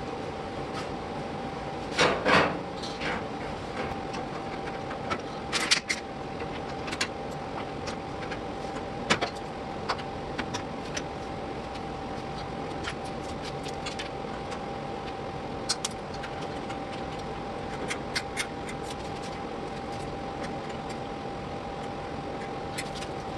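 Steady shop hum with a constant faint tone, broken by scattered clicks and knocks of tools and sheet metal being handled. The loudest knocks come about two seconds in, near six seconds and near nine seconds.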